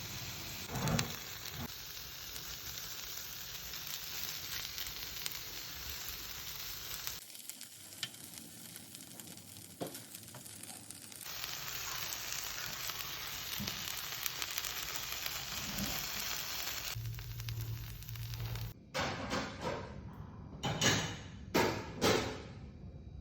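Chicken pieces for yakitori sizzling in a pan cooked without oil, a steady frying hiss that drops away for a few seconds in the middle and comes back. Near the end, several sharp knocks and clatters.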